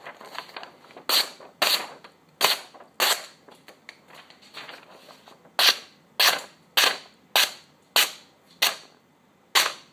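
Razor-sharp Victorinox butcher knife slicing through paper in quick strokes: about eleven crisp, hissing cuts, four in a row, a short pause, then seven more about half a second apart.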